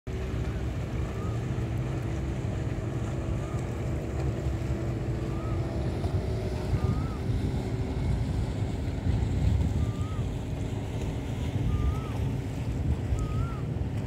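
Boat engine running steadily under a low rumble of wind on the microphone and rushing water. A faint short chirp repeats every second or two.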